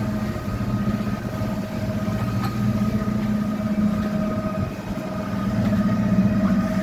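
A catamaran's inboard main engines running steadily under way, heard from inside the hull: a constant hum with several held tones.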